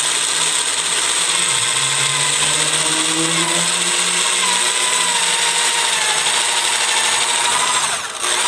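Electric drill boring a pilot hole into the end grain of a wooden beam with a long 3/8-inch bit, running steadily under load. Near the end it briefly drops out and starts again.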